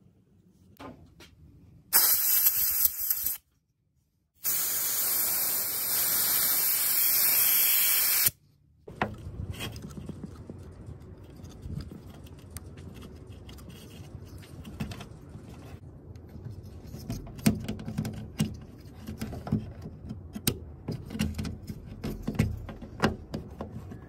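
A loud, steady hiss of a pressurised jet starts about two seconds in, breaks off for about a second, then runs on for about four seconds more and stops suddenly. After it come light clicks, scrapes and knocks of the plastic washer-jet assembly being handled and pushed into its mounting.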